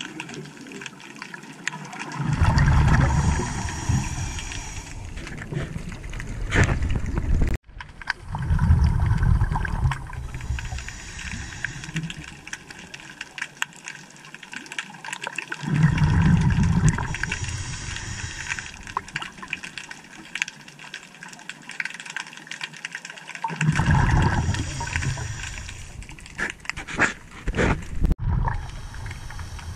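A scuba diver's exhaled bubbles rushing out of the regulator exhaust four times, about every seven to eight seconds, each a low bubbling burst lasting two or three seconds. Between them is a quieter steady underwater wash, recorded underwater through the camera housing.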